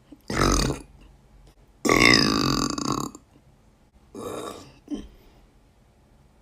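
A young woman burping three times: a short burp, then a long drawn-out one lasting over a second, then a shorter, quieter burp.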